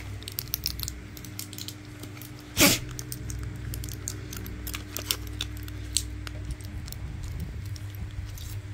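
Foil blister pack of tablets and a plastic bag being handled: light crinkling and clicking throughout, with one louder, brief crackle about two and a half seconds in.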